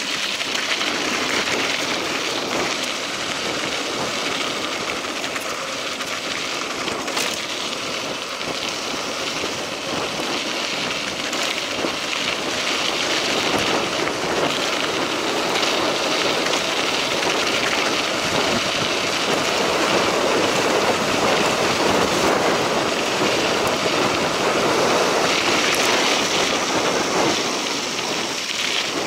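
Mountain bike rolling along a dirt road: a steady rushing noise of tyres on gravel, with a few sharp clicks and rattles.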